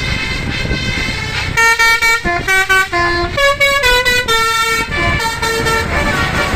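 Telolet basuri musical horn on an SJM Trans bus playing a quick tune of short stepped notes, starting about a second and a half in and lasting about four seconds, over bus engine and road noise.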